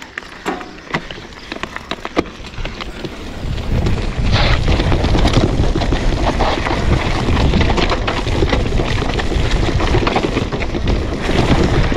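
Mountain bike riding down a rough dirt trail: scattered clicks and knocks from the bike at first, then from about four seconds in a loud, continuous rumble of tyres and frame rattling over the dirt with wind buffeting the microphone as speed picks up.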